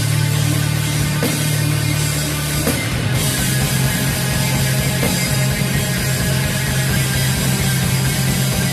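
Post-black metal band playing live: distorted guitars, bass and drums in a loud, dense wall of sound, with the low notes shifting a little under three seconds in.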